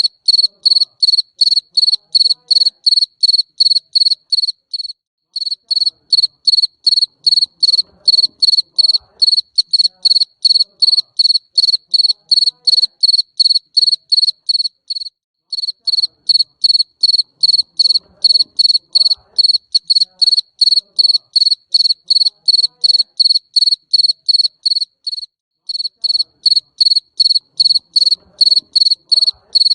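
Jangkrik mbering cricket chirping steadily, high-pitched, about two chirps a second, with a brief break roughly every ten seconds.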